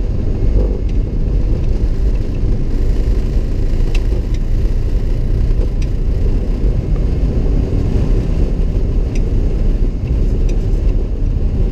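Airliner cockpit noise during the takeoff roll: a steady loud rumble of the engines at takeoff power and the wheels running on the runway, with a few faint clicks.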